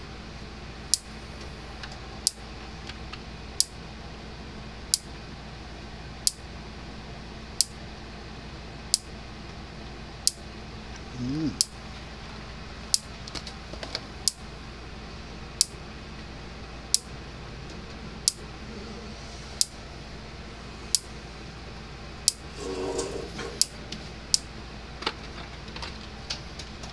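Gallagher M300 electric fence charger pulsing during an output test, a sharp click about every second and a third, evenly spaced, over a faint steady hum.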